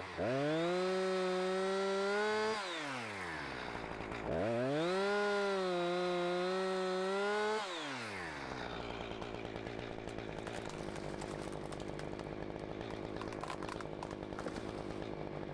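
Two-stroke chainsaw revved up to full throttle twice, each burst held for about two to three seconds before the pitch falls away. It then settles to a steady idle for the rest of the time.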